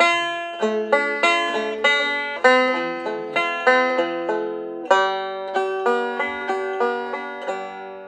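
Five-string banjo picked note by note, playing a short melody phrase over a D minor chord shape with the melody on the first string. The notes come about two to three a second, each decaying quickly, and the last ones ring out near the end.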